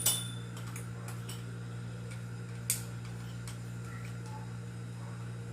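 A few scattered light clicks and taps of faucet parts being handled and fitted back on, the loudest about halfway through, over a steady low hum.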